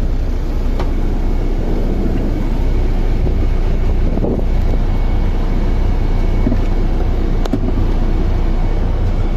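AC sleeper coach's engine running steadily, a continuous low rumble heard from inside the coach near the front door, with a couple of light clicks.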